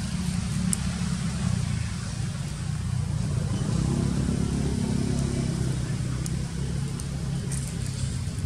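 Low, steady rumble of a motor vehicle engine, with a humming tone that swells about three and a half seconds in and fades a couple of seconds later, as of a vehicle passing.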